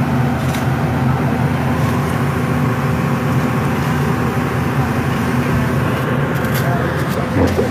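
Tracked excavator's diesel engine running steadily close by, with a few short knocks near the end.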